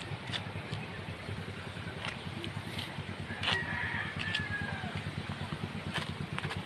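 A rooster crows about halfway through, a single falling call over a steady low mechanical rumble, with scattered light clicks.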